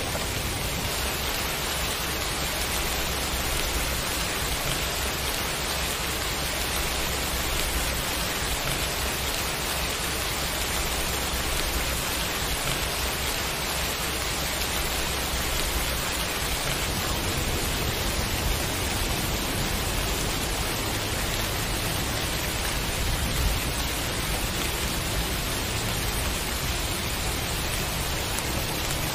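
Steady rain falling, an even, unbroken hiss, with a single brief low thump about 23 seconds in.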